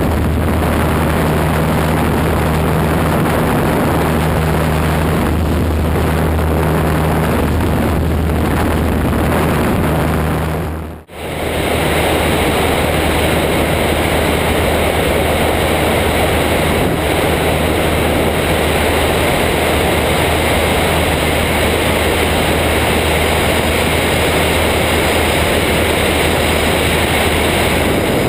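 Mudry CAP 10 light aerobatic aircraft in flight: a steady drone of its four-cylinder piston engine and propeller under heavy wind rush on the outside-mounted microphone. The sound drops out briefly about eleven seconds in, then the same drone carries on.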